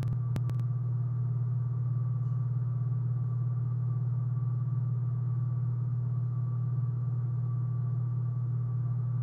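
A steady, unchanging low hum with a faint higher tone above it, and a few faint clicks right at the start.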